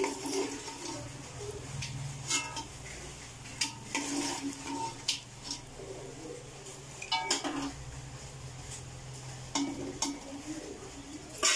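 A steel perforated skimmer and a spoon clinking and scraping against an aluminium pot while stirring fried banana pieces in oil. Separate knocks come every second or two, a couple of them with a short metallic ring, over a low steady hum.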